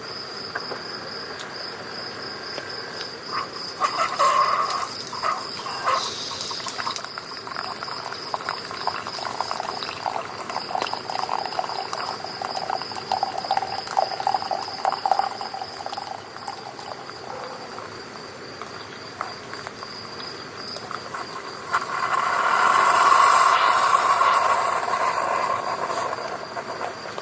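Crickets trilling steadily on a summer night, a fast pulsing high chirr that never stops. Close rustling and crackling comes in bursts through the middle. Near the end a louder rushing noise swells up and fades away over a few seconds.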